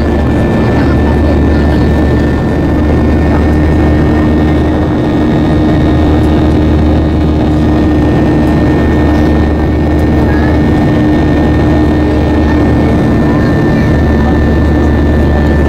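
Boeing 737-800's CFM56-7B turbofan engines at climb thrust, heard from inside the cabin. A loud, steady rumble with a low hum and a thin high whine held throughout.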